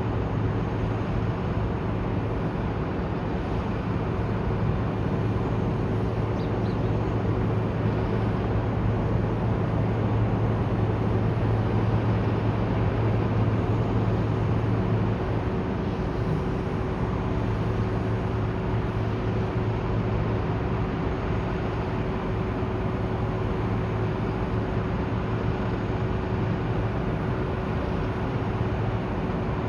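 Steady city noise with a low engine drone running under it, swelling slightly in the first half and then settling.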